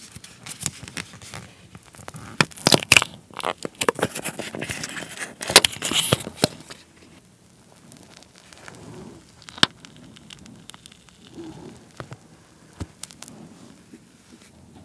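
Plastic wrapper of a Trolli Planet Gummi crinkling and crackling as it is peeled off by hand. It is loud and dense for the first seven seconds, then quieter and sparser, with one sharp click about ten seconds in.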